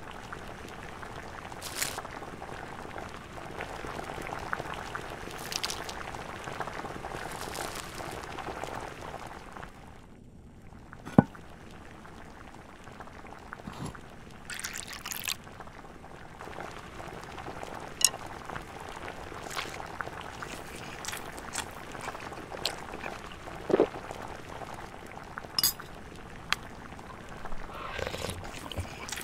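Soup bubbling at a steady simmer in a pot for about the first ten seconds, then a loud sharp clink, followed by a clear drink being poured into a small ceramic cup over ice cubes, with several glassy clinks.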